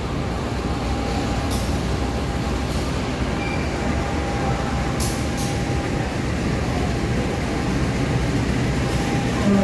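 Diesel locomotive engine running with a steady low rumble. A few brief high clicks or hisses sound over it.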